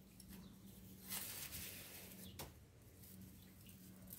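Near silence: faint handling sounds of gloved hands working a lump of damp modelling concrete, with a soft rustle about a second in and a single small click a little past halfway, over a low steady hum.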